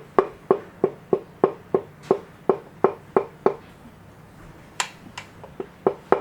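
Rapid light taps on a forged piston, driving it down through the ring compressor into the bore of an RB26 engine block, each tap ringing briefly with a metallic tone. About three taps a second, a pause a little past halfway, then a few lighter taps.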